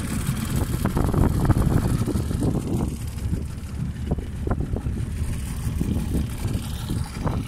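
Mariner 40 hp two-stroke outboard motor running steadily as the boat moves along, a low rumble mixed with wind buffeting the microphone.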